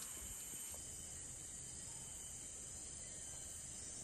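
Steady high-pitched insect chorus, with a faint low rumble underneath from about a second in.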